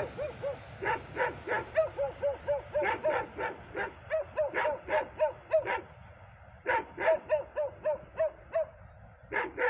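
A dog barking in fast runs of short yaps, several a second, pausing briefly about six seconds in and again near the end, over a faint low rumble from the passing freight train.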